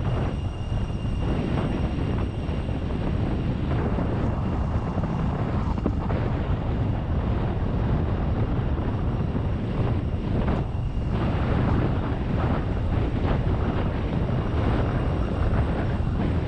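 Steady wind rushing over the microphone mixed with road and engine noise, heard from the open back of a moving pickup-truck taxi.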